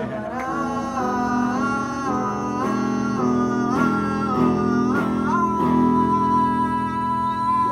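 A woman singing a melody live into a microphone over guitar accompaniment, ending on one long held note.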